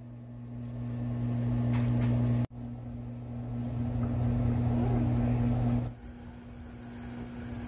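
Aquarium pump humming steadily with water trickling. The sound cuts out for an instant about two and a half seconds in and turns quieter about six seconds in.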